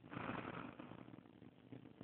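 A sleeping woman's soft breathing in the pause between two snores: a faint breathy hiss that fades over about half a second, then near quiet.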